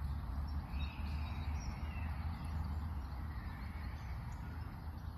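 Outdoor park ambience: a steady low rumble with a few faint bird chirps.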